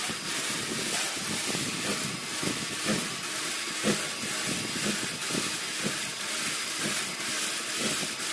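Workshop machinery running: a steady hiss with irregular low knocks and clatter.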